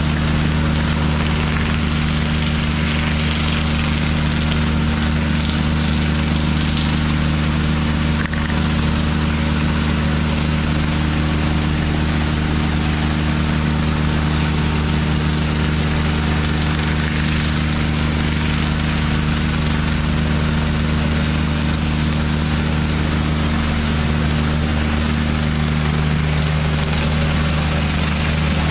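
Steady drone of a 28 HP Kubota water-cooled diesel engine driving a hot-water pressure washer's pump, with a constant hiss of high-pressure water spraying onto stone paving.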